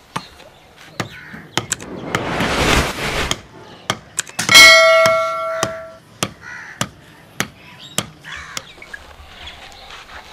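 Wooden club pounding dry clay lumps to crush them, in steady dull thuds about every half second. Layered over it are a whoosh about two seconds in and a loud bell-like ding about four and a half seconds in that rings for over a second: the sound effect of a subscribe-button overlay.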